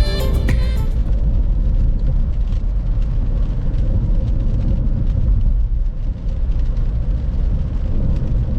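Steady low rumble of a moving vehicle, after background music ends about a second in.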